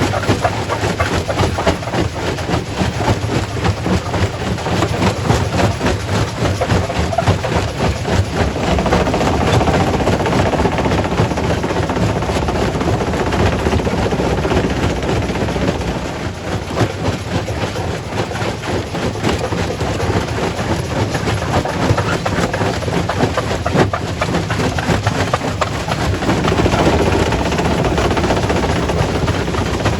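Primary rock crusher running under load: a steady heavy drone with dense, irregular knocks and cracks of stone being broken. It grows louder for several seconds in the middle and again near the end.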